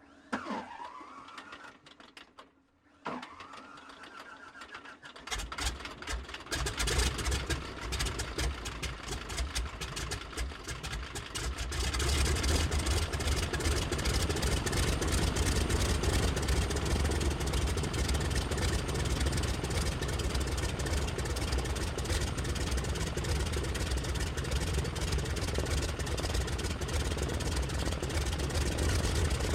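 Helicopter starting up. Two rising whines come in the first three seconds, then a low rhythmic rotor beat begins about five seconds in and grows. From about twelve seconds the helicopter runs steadily and louder, at idle.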